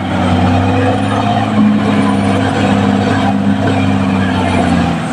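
Caterpillar D6R XL bulldozer's diesel engine running steadily at a constant pitch.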